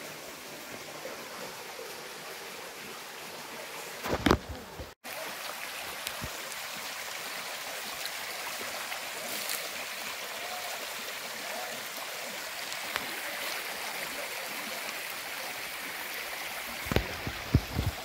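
Shallow stream running and splashing over rock slabs, a steady rush of water. A few loud thumps about four seconds in and again near the end, with the sound cutting out for an instant just after the first ones.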